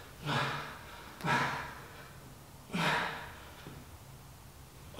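A man's heavy breathing under exertion during a workout interval: three loud breaths in the first three seconds, then quieter.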